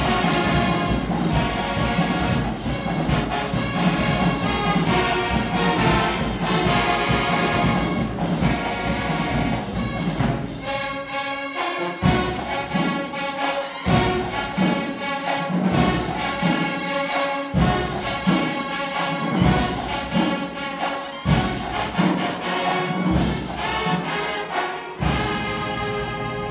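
Marching band brass, including sousaphones, trumpets, trombones and saxophones, playing loud full-band music. About halfway through it drops out briefly, then comes back with big accented hits about every two seconds and sustained brass chords between them.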